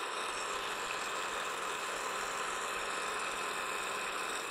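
Precision Matthews PM-727 milling machine taking a cutting pass with an end mill across 2-inch round stock: a steady whirring cut with the spindle running.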